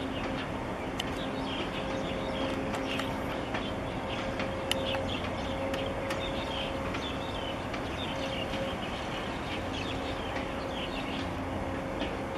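A steady low drone with a hum that fades in and out from a passing very large gas carrier, with small birds chirping often throughout.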